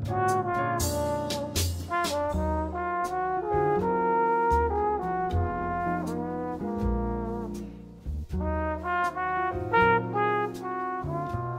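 Jazz background music: a melody line of held notes over a stepping bass line, with cymbal strokes.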